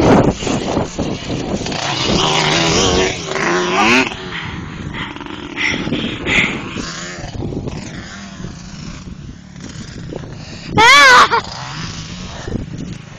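ATV engines revving on a motocross track, their pitch rising and falling as the quads accelerate and back off. About eleven seconds in there is a loud, brief wavering sound, the loudest moment.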